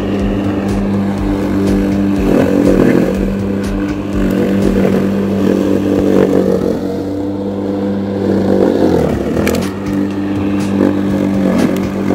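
Max Green corded electric lawn mower running as it is pushed over grass: a steady motor-and-blade hum with some scraping and clatter from the cutting. About nine seconds in the pitch dips briefly as the motor is loaded by the grass.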